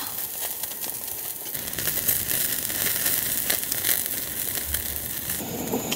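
Meat grilling on a mini roaster, sizzling over a steady hiss with a dense, irregular crackle.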